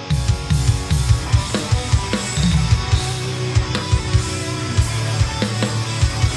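Acoustic drum kit played hard along with a progressive-metal backing track, kicking in suddenly right at the start: fast, dense bass-drum strokes, snare hits and cymbal crashes over low sustained guitar and bass notes.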